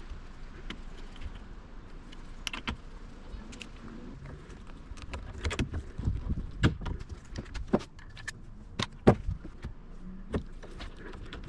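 Irregular clicks and knocks, as of tools and parts being handled, over a low steady rumble; the sharpest knocks come between about five and ten seconds in.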